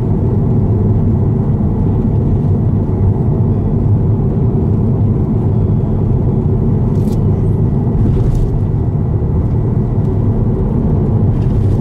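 Steady low road and engine rumble of a car driving along an expressway, heard from inside the cabin, with a few faint ticks a little past the middle and near the end.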